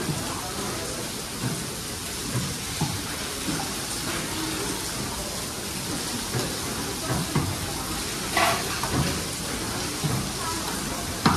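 Steady hiss of rain throughout, with irregular dull knocks from a butcher's cleaver on a wooden chopping block, and faint voices.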